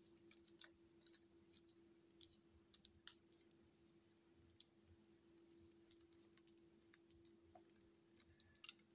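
Faint, irregular clicks and ticks of a plastic Transformers action figure's parts being handled, rotated and pegged together while it is transformed.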